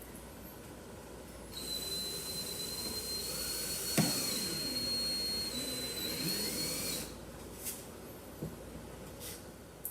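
High-speed handheld power tool running with a steady high whine for about five seconds, then stopping. A sharp click comes midway through the run.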